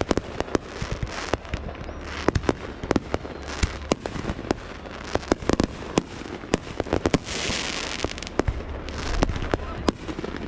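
Fireworks going off, a quick, irregular run of sharp bangs and pops. A little after seven seconds in there is a dense hiss lasting about a second.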